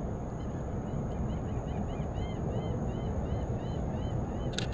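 A bird calling a quick series of short, arched notes, about three a second, over a steady low rumble. A camera shutter clicks once near the end.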